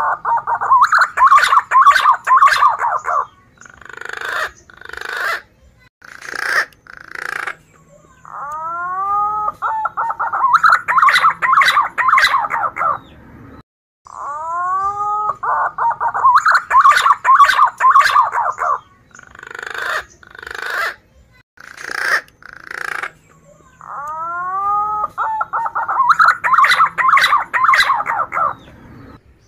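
Male punai daun green pigeon singing its full song over and over, about every eight or nine seconds. Each song opens with a few curved rising whistles, runs into a fast warbling passage, and ends in a few separate whistled notes.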